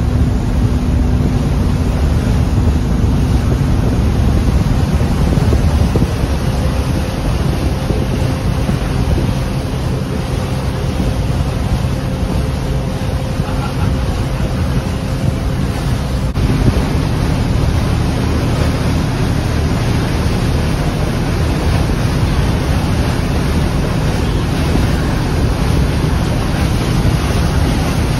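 River express boat's engine running steadily under way, a low steady hum, with water rushing along the hull and wind buffeting the microphone.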